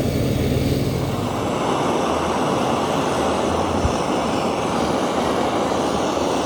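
Steady loud mechanical roar with a low hum underneath, and one sharp tick about four seconds in.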